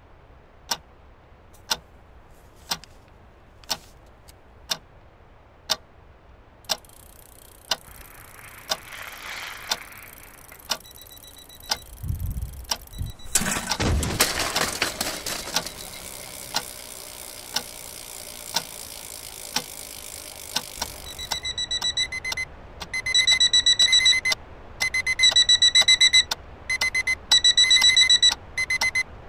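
A clock ticking about once a second, a swelling whoosh with a low rumble near the middle, then an alarm clock going off: high electronic beeping in rapid bursts about a second long with short gaps.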